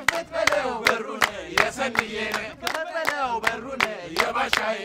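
A group of voices singing a chant-like song together with hand claps on a steady beat, about two and a half claps a second.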